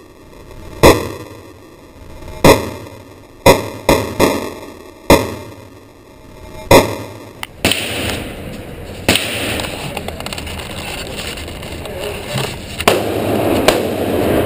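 Handgun shots on a range, seven loud, sharp reports in the first seven seconds, some in quick pairs. After that come a few fainter shots over a steady background noise.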